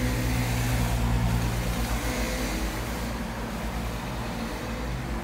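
A motor running: a steady low hum with hiss over it, louder in the first three seconds and easing after.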